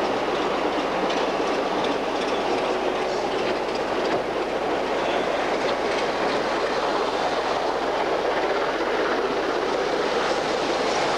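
Two preserved BR Class 24 diesel locomotives running past at close range: a steady mechanical rumble with the wheels clicking on the rails.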